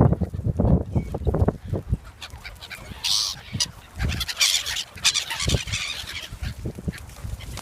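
Farmyard poultry calling, with honking calls among them. Low thumps come during the first couple of seconds, and the loudest calls come about three seconds in and again around five seconds.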